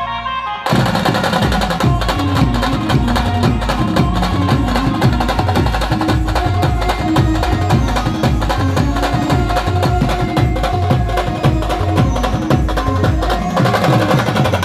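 Band music: a melody carries on while, less than a second in, a fast, dense drum beat with deep bass notes comes in sharply and keeps going.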